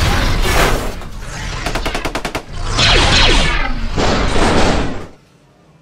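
Loud action sound effects: gunfire-like noisy blasts with falling sweeps, and a quick run of sharp clicks near the middle, cutting off suddenly about five seconds in.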